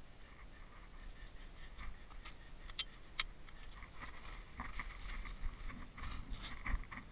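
Rustling and handling noise from the tent's fabric and cords as a person moves about, with two sharp clicks about three seconds in. Near the end, a low rumble on the microphone and steps into snow.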